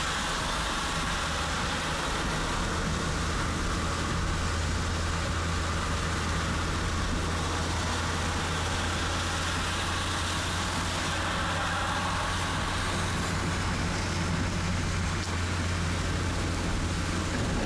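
Steady car noise of driving in heavy rain: a constant low engine hum under an even wash of rain and road noise.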